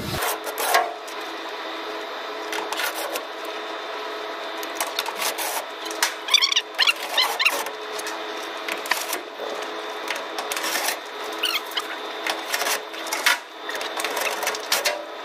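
Sped-up sound of panel air filters being slotted into the metal frames of an aircon unit: rapid clicking and clattering over a steady hum, with high chirping sounds about six to seven seconds in.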